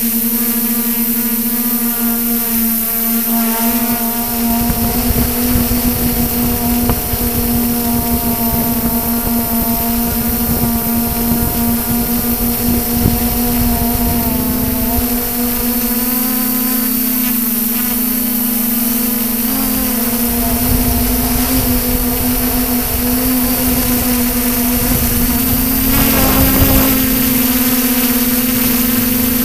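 Multirotor drone's electric motors and propellers humming steadily with a strong even buzz, heard from a camera mounted on the aircraft itself; the higher overtones waver up and down as the craft manoeuvres. Gusty rumble of wind on the microphone comes and goes, with a brief louder surge near the end.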